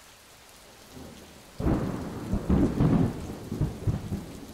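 Steady rain falling, then about a second and a half in a loud clap of thunder breaks out and rumbles on in uneven pulses, slowly dying down.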